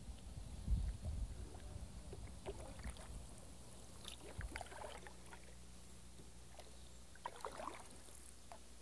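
Faint splashes and drips of a canoe paddle dipping and pulling through calm river water, a few irregular strokes. There is some low wind rumble on the microphone in the first second or so.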